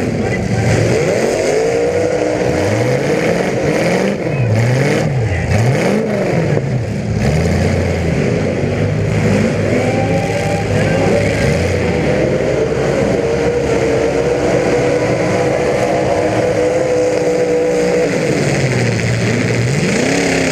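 Several demolition derby car engines revving hard over one another, their pitch repeatedly rising and falling.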